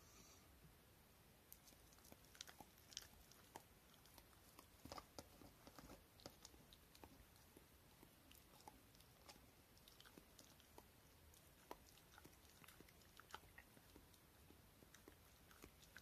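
Faint, irregular small clicks of a Shiba Inu chewing cooked rice grains eaten from a person's fingers.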